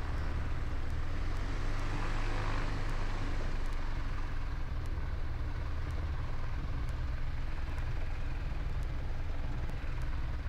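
Light aircraft's piston engine and propeller running steadily at taxi power, heard from inside the cockpit with the canopy slid slightly open.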